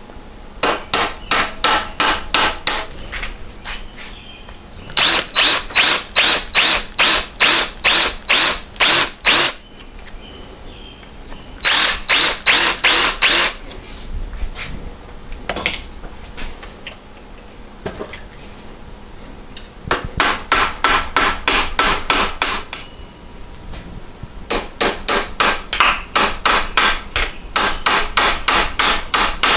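A hammer strikes a 3/16 pin punch to drive a stuck roll pin out of a Porsche 912 clutch pedal shaft. The blows are sharp and come about three a second, in runs of several seconds with short pauses between them.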